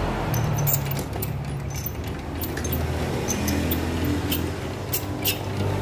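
Small variable-speed metal lathe running with a steady motor hum, turning a motorcycle piston held in its chuck. Scattered sharp ticks sound over the hum.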